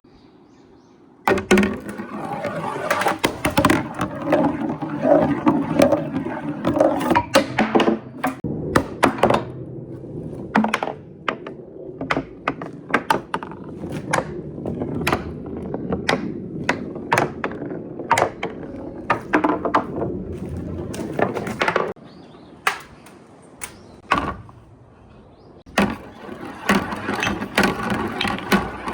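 Marbles rolling down a wooden marble run with right-angle turns: a steady rolling rumble with many sharp wooden clacks as they strike the corners and drop. It starts suddenly about a second in and eases off for a few seconds near the end before picking up again.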